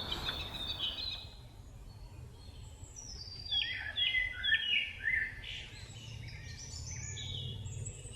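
Wild birds chirping and singing, with a quick run of short falling notes in the middle and scattered calls before and after.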